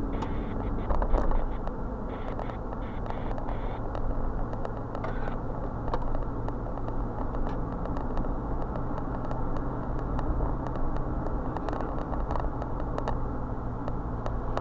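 Steady engine hum and tyre and road noise of a car driving at town speed, heard from inside the cabin.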